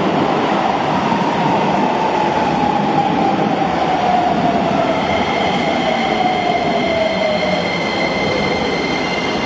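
Keisei 3000-series electric train pulling into an underground platform and slowing. A clear motor whine falls steadily in pitch over the wheel and track rumble, and a steady high squeal joins about halfway as it brakes.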